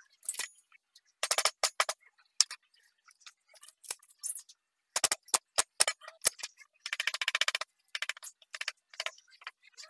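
Steel carving chisels being set down and handled on a wooden workbench: clusters of sharp clicks and knocks, with a short rustling scrape about seven seconds in.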